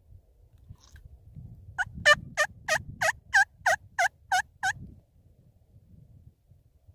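Hand-operated turkey call run through a string of about ten yelps, roughly three a second, starting about two seconds in. It sounds crappy because the call is cold from sitting in the truck.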